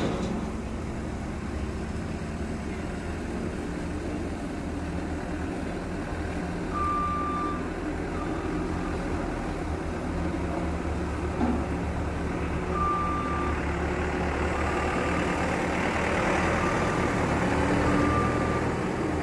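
Dynapac single-drum road roller's diesel engine running steadily as the machine reverses, heard muffled through a car windshield. From about seven seconds in, its reversing alarm gives short single-pitch beeps at irregular intervals.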